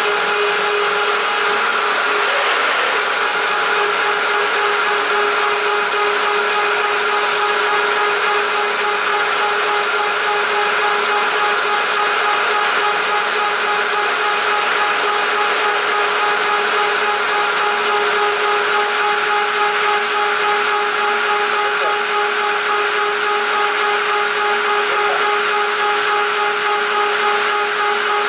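WorkBee CNC router's spindle running at a steady, unbroken whine while its end mill cuts 6061 aluminium, the cutting adding a constant hiss over the motor's tone.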